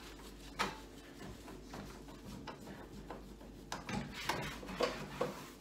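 Cleaning sounds at a microwave's door: rubbing and small knocks and clicks as the inside of the door is wiped, with one sharp click about half a second in and a cluster of knocks near the end, over a steady low hum.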